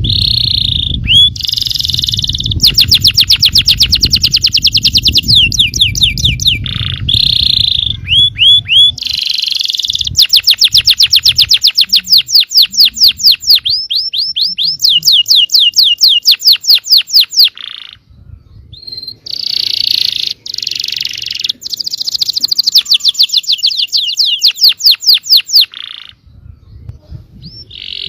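Yellow canary singing a loud, long song of rapid trills and rolls, fast runs of repeated notes broken by short pauses.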